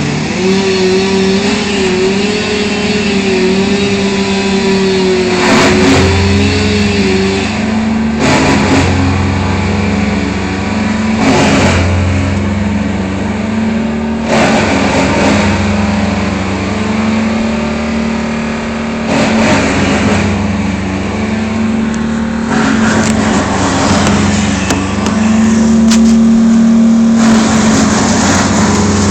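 An engine running at a steady speed, with loud bursts of noise every few seconds.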